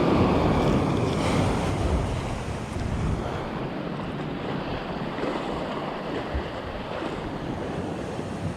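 Sea surf washing over shoreline rocks, with wind buffeting the microphone. The surge is loudest in the first second or so, then settles to a steady wash.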